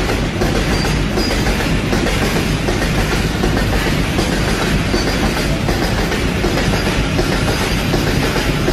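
Open freight wagons loaded with coal rolling past: a steady, loud rumble and clatter of wagon wheels on the rails.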